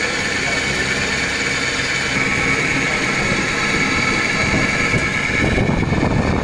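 Steady hum of running machinery with a high, even whine over it; from about four and a half seconds in, a heavier low rumble joins it.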